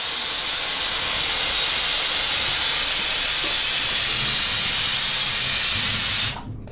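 Compressed air hissing out of a pneumatic mower lift table as it is let down: a steady hiss that cuts off abruptly near the end.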